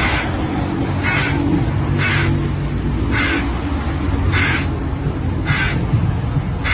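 Hoarse crow-like caws, one short call about every second, seven in all, over a steady low rumble.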